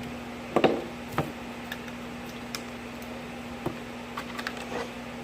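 A handful of light clicks and taps at uneven intervals, the loudest about half a second in, from handling a battery-powered strobe test setup, over a steady low hum.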